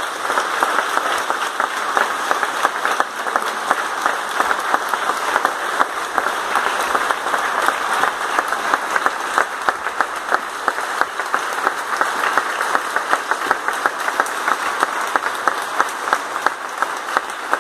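Audience applauding steadily: a dense, continuous clapping with no let-up.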